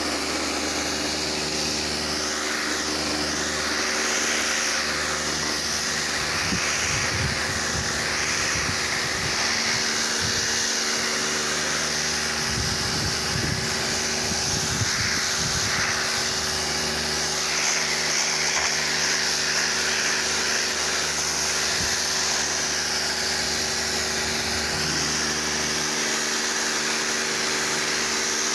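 Pressure washer running steadily, its jet spraying with a loud hiss that keeps shifting in tone as the spray moves over the car.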